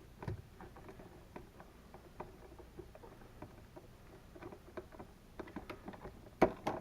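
Faint scattered clicks and small scrapes of a screwdriver backing out a terminal screw on an old electrical outlet to free a wire, with one louder knock near the end.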